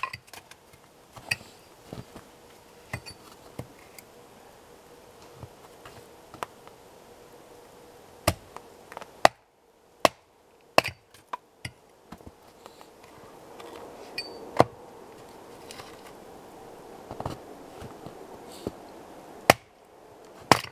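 Axe splitting firewood into kindling on a wooden stump chopping block: a dozen or more sharp chops and knocks at uneven intervals.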